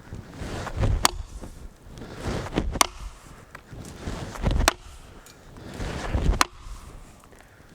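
Chopping axe striking into a log with a steady rhythm: four sharp chops, one about every two seconds.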